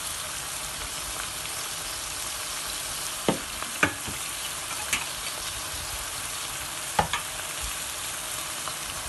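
Garlic, onion and tomato paste sizzling steadily in hot oil in a pot while being sautéed, with a few sharp clicks and scrapes of the spatula against the pot as it is stirred, starting about three seconds in.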